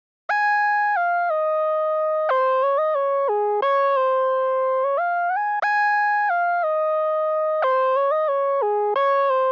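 Solo synthesizer keyboard melody, one note at a time, with no drums or bass: a short stepwise phrase that starts again about halfway through. It is the intro of an AI-generated hip hop instrumental.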